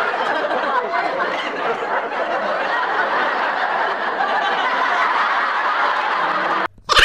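Studio audience laughing: a dense, steady wave of many people's laughter that cuts off abruptly near the end.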